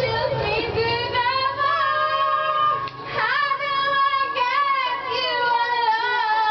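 A high female voice singing loudly in long, drawn-out notes, with a brief break for breath about three seconds in.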